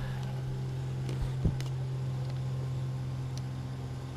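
A steady low motor hum, with one sharp thump about a second and a half in and a few light clicks.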